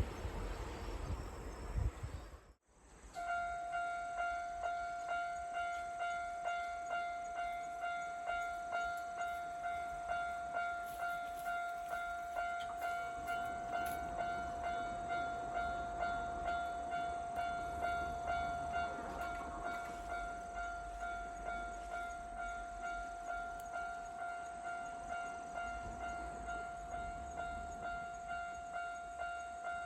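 Japanese level-crossing warning bell ringing over and over, a steady electronic ding about twice a second. A low rumble lies under it in the first couple of seconds, and the sound cuts out briefly about two and a half seconds in before the bell carries on.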